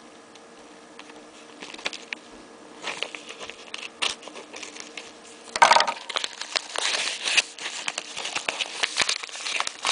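A mail package being opened by hand: packaging crinkling and rustling in irregular clicks, a sharp louder rip a little past halfway, then a stretch of dense crackling as the wrapping is pulled apart.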